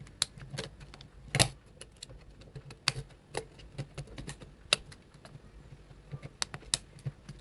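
Irregular small plastic clicks and snaps as a feature phone's plastic housing is pried apart by hand, the loudest at about a second and a half in and again near five seconds.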